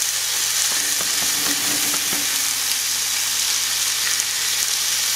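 Chuck steak searing in a hot cast-iron skillet: a steady sizzle.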